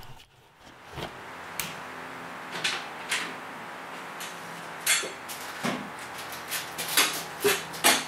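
Scattered light knocks and clicks of someone walking about a workshop and handling a large plastic twisty puzzle, over a steady low hum. The knocks come more often near the end.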